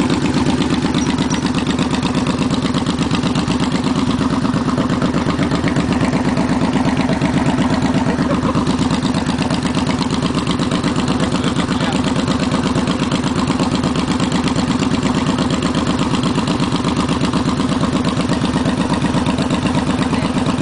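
Motorcycle engine running steadily while riding at an even, low speed: a continuous low drone of closely spaced exhaust pulses.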